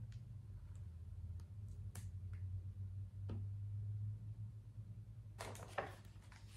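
A picture book's page being turned about five and a half seconds in, a short cluster of rustles and flaps. Before it, only a faint steady low hum and a few light ticks from handling the book.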